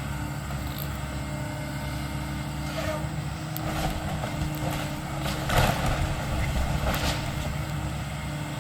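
Engine of a Volvo demolition machine running steadily, with several sharp cracks and crashes of a building coming down, loudest a little past the middle.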